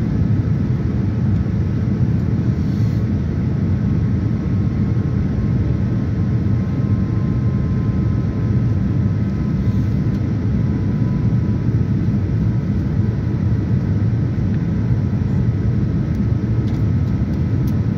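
Steady in-flight cabin noise of a Boeing 787-9 airliner heard from a window seat over the wing: an even, low rush of airflow and engine noise, with a few faint steady tones above it.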